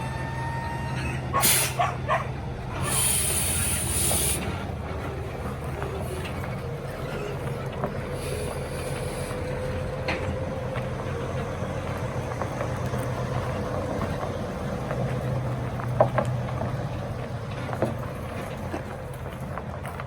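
Heavy truck engine idling steadily, with hisses of air brakes venting: a short one about a second and a half in, a longer one of about a second soon after, and a fainter one about eight seconds in.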